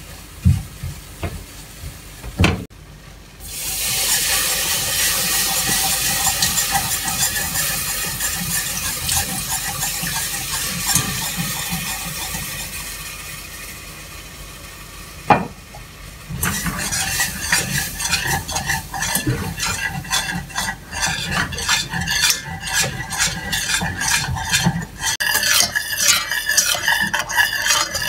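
Stirring in a stainless steel saucepan: first a wooden spatula knocking against the pan, then a hiss of sizzling that slowly dies down. From about halfway on, a wire whisk beats the white sauce with quick, steady clicks of wire against the pan.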